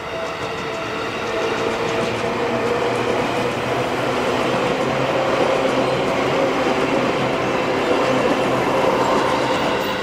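Seibu Shinjuku Line electric commuter train passing over a level crossing, its rumble growing louder over the first few seconds and easing near the end, while the Japanese crossing bell keeps up its repeating ding-ding warning.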